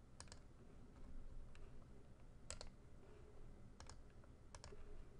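Computer mouse clicking about four times, each click a quick double tick of button press and release, over a faint steady room hum.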